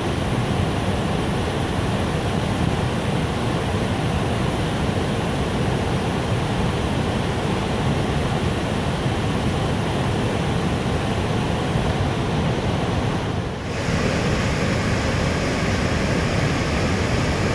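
Waterfall: a steady, full rush of falling water. About 13 seconds in it dips briefly and comes back brighter, with more hiss.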